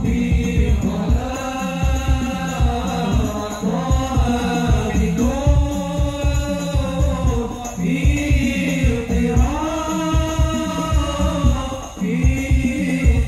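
Hadrah ensemble performing through a PA: several male voices sing a drawn-out devotional melody together, over a fast, steady rhythm of rebana frame drums.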